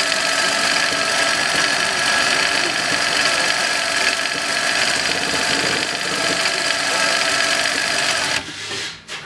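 AtlasUSA AT-20U-2NH industrial automatic zigzag sewing machine running steadily at speed while it stitches a zigzag pattern. It stops a little over eight seconds in.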